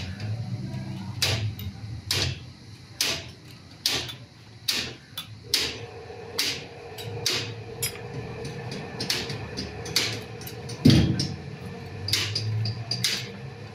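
Metal hand tools tapping and clicking on a Toyota 1KZ diesel engine under repair, a sharp tap about once a second, with one heavier knock near eleven seconds. A steady hum comes in about halfway through.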